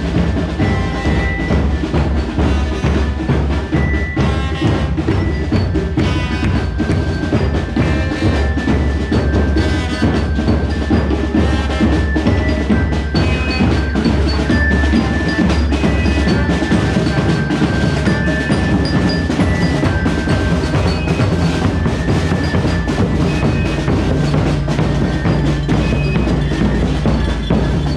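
Percussion-led music: drums with a bright, ringing glockenspiel-type bell melody over a steady low bass.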